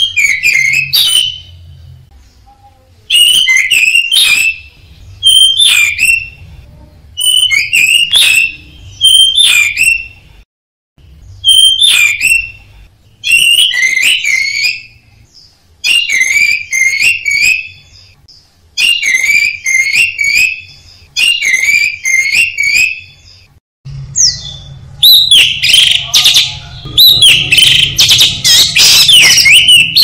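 Orange-headed thrush (anis merah) singing loud, clear whistled phrases in short bursts every couple of seconds. Near the end the song becomes a dense, unbroken run.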